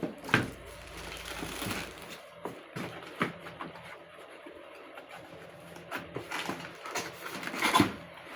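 Unboxing noises: cardboard and plastic packaging being handled, with irregular rustles, clicks and knocks, the loudest near the start and again about three quarters through.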